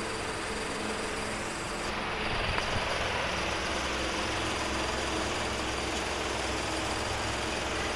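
Steady mechanical hum with a low drone and hiss, with a few faint knocks a little over two seconds in.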